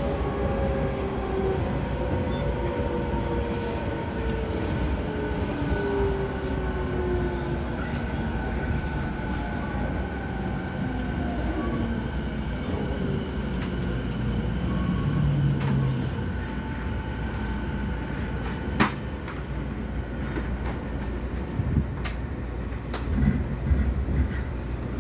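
Mitsubishi IGBT VVVF inverter and traction motors of a JR East E217 series electric train braking into a station: several whines fall slowly in pitch over rail and wheel noise as the train slows. Toward the end, once it has stopped, a few sharp clicks and knocks are heard.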